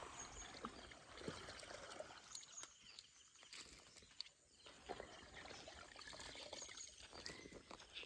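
Near silence: faint scattered ticks and rustles as small fish are picked over by hand on a woven plastic sack. A few faint high chirps come in here and there.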